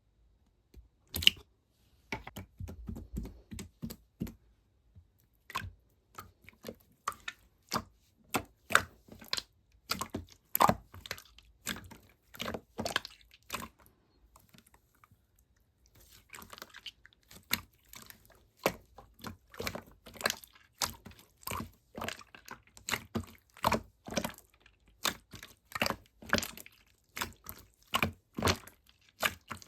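A run of sharp, irregular clicks and taps, a few a second, with a break of about two seconds around the middle.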